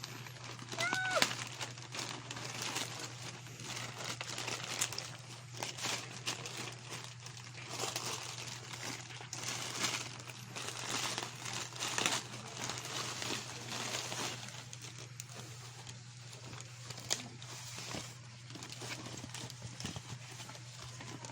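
Packaging being handled during an unboxing: crinkling plastic and paper with irregular rustles and small clicks and taps. A short squeak about a second in, over a steady low hum.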